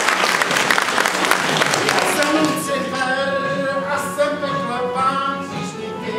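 Audience applause fading out over the first two seconds, then music with singing voices begins, in held, slightly wavering notes.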